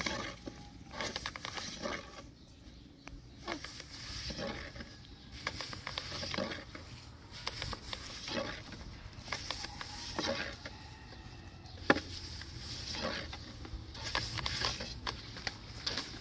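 Thin wooden rolling pin rolling and tapping on a floured wooden board as flatbread dough is rolled out very thin, with irregular light knocks and scrapes and one sharper knock about twelve seconds in.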